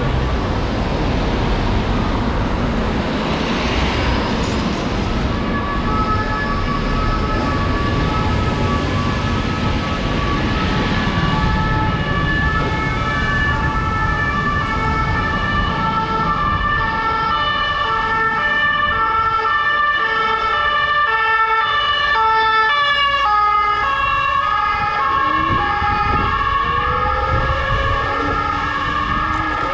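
Steady wind and traffic noise from riding a scooter through city streets. From about six seconds in, an emergency vehicle's two-tone siren alternates high and low, and it continues to the end. Near the end a rising whine joins it.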